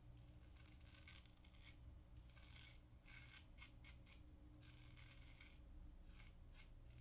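Superior Lather Catcher single-edge safety razor with a GEM PTFE blade scraping through lather and stubble in a run of short, faint strokes, pausing briefly about two-thirds of the way through, during a diagonal against-the-grain pass.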